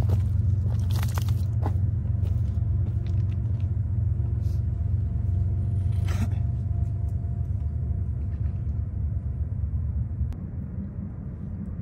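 A steady low rumble, with a few light scrapes and clicks from footsteps on loose shoreline rocks and from handling fishing tackle; the loudest come about a second in and about six seconds in.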